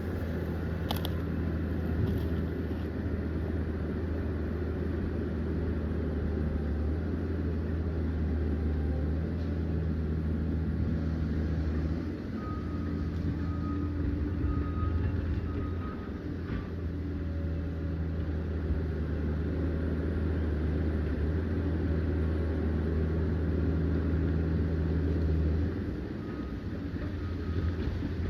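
Liebherr PR 744 crawler dozer's diesel engine running under load, a steady deep drone whose note drops and picks up again a few times as the load changes. Short repeated beeps sound twice, about halfway through and near the end.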